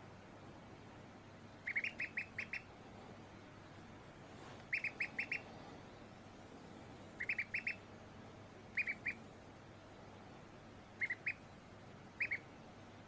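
Domestic duckling peeping in quick runs of three to five high, short peeps. About six runs come a second or two apart.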